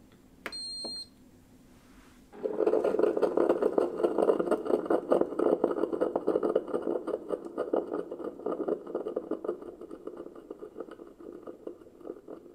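Ninja CP307 coffee maker starting a brew: a click and a short high beep, then about two seconds later a very loud, rapidly pulsing brewing noise that slowly fades. The loud start is typical of the first stage of this machine's brew.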